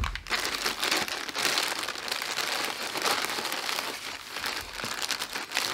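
Packaging crinkling steadily as it is handled and unwrapped, with a sharp click at the very start.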